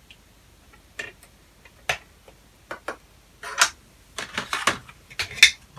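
Irregular light clicks and taps of small metal hand tools, tweezers among them, handled and set down on a workbench and circuit board. A few single clicks come first, then a busier run of short rattles and rustles in the second half.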